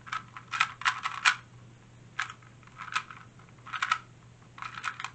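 2x2 speed cube being turned fast during a timed solve: quick flurries of sharp plastic clicks as the layers snap round, bunched into bursts with short pauses between them.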